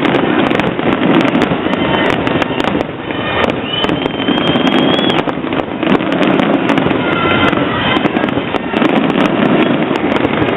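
Fireworks going off in a dense, continuous barrage of rapid bangs and crackles, with a short high whistle about four seconds in.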